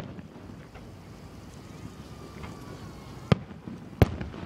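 Fireworks exploding: a sharp bang at the start, two more about three and four seconds in, and another at the end, with low rumbling between them.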